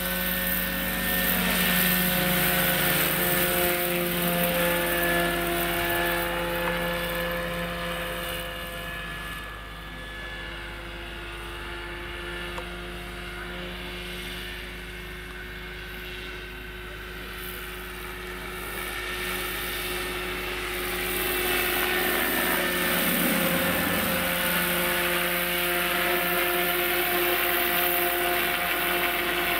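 Electric Bo-105 superscale RC model helicopter, driven by a Hacker motor on 12S, flying: a steady motor whine over the rotor's rushing blade sound. It grows fainter in the middle as the model flies farther off, then louder again near the end as it passes close.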